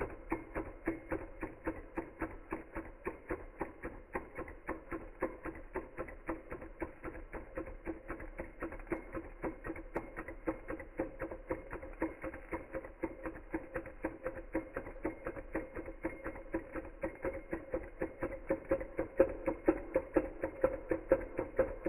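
Small Hog Motor Stirling engine running, its moving parts clicking in a steady rhythm of about four clicks a second over a low hum.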